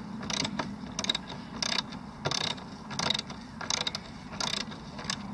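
Socket ratchet being worked back and forth on a bolt, the pawl clicking in a short burst on each return stroke, about eight evenly spaced strokes.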